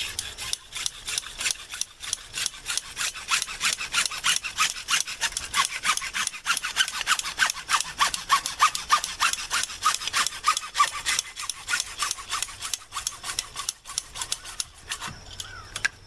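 Hand saw cutting through a length of PVC pipe, a steady run of quick back-and-forth scraping strokes. The strokes stop shortly before the end as the pipe is cut through.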